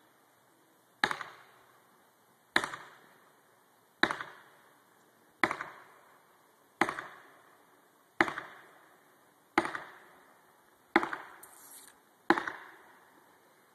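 Axe chopping into a tree trunk: nine sharp, evenly paced strokes, about one every second and a half, each with a short ringing decay.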